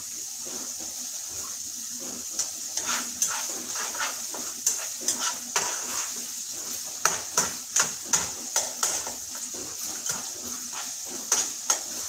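A utensil clinking and scraping against a pan, irregularly, several times a second, as ground beef is stirred while it browns. The clinking starts a couple of seconds in, over a steady frying sizzle.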